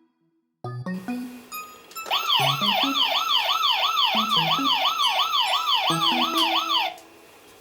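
Electronic siren sound effect from a Technopark toy military base playset: a few short electronic notes, then about two seconds in a fast wailing siren of about three rise-and-fall sweeps a second over a low electronic tune, which cuts off suddenly near the end.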